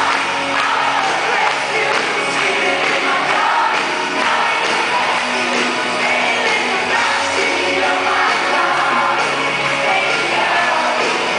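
Live rock band playing a song with a singer over it, as heard from among a large arena audience, with some shouting from the crowd.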